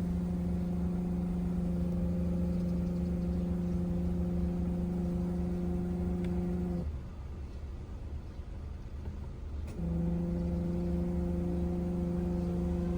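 Suzuki Wagon R air-conditioning compressor making an abnormal steady hum over a low drone; the hum cuts out about seven seconds in and comes back about three seconds later. This kind of noise goes with a failing compressor and an air conditioner that no longer cools.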